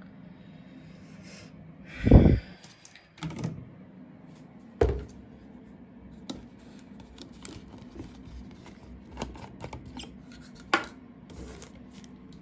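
Handling noises while preparing a washing machine load: a series of small clicks, knocks and rustles, with a loud dull thump about two seconds in and a smaller one near five seconds.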